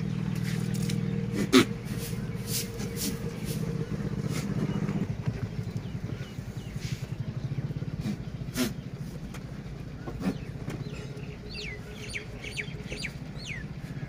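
A small engine running steadily in the background, louder in the first five seconds. Over it come a few sharp knocks from goats jostling at a straw-filled feed trough, the loudest about a second and a half in, and birds chirp near the end.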